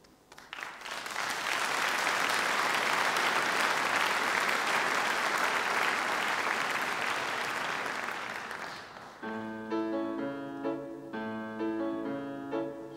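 Audience applauding for about eight seconds. The clapping fades, and a grand piano begins playing separate notes about nine seconds in.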